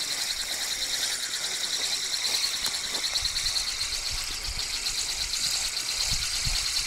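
Insects trilling steadily: a high, rapid, evenly pulsing chirr, with a few low handling thumps in the second half.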